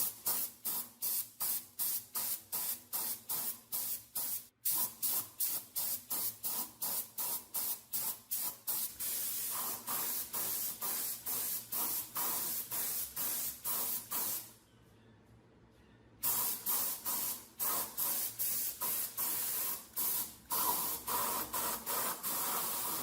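Paint being sprayed in short, rapid hissing bursts, about three a second, with a pause of about a second and a half past the middle.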